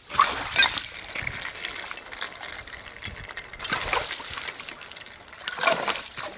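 Chunks of ice thrown onto a thin frozen pond, sliding across the ice with the sound of ice rolling on ice. It comes in three bursts: at the start, about four seconds in, and just before six seconds.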